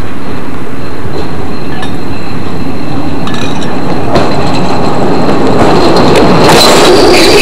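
Freight wagon rolling freely down the hump on the rails, with scattered sharp clicks from the wheels and rail. Near the end it grows louder, with a high metallic ring and scrape as its wheel runs onto a steel brake shoe laid on the rail.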